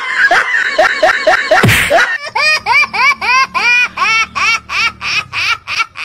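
High-pitched laughter: a long string of short 'ha' syllables, about three a second, each rising and falling in pitch, with a brief noisy burst a little before two seconds in.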